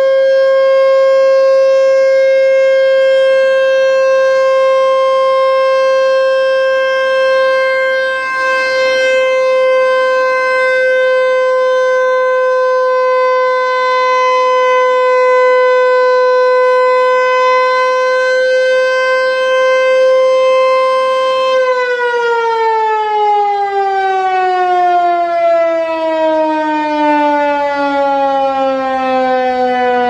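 American Signal T-121 electromechanical outdoor warning siren sounding a loud, steady tone. After about twenty seconds it shuts off and the pitch falls smoothly as the rotor winds down.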